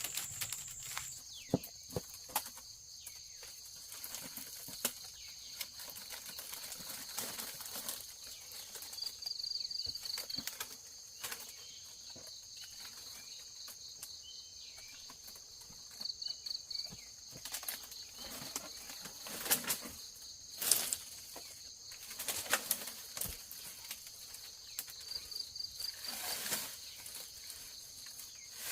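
Insects keep up a steady high drone, with three short rapid trills. Over it come frequent irregular rustles and sharp knocks, the loudest a few seconds past the middle and near the end.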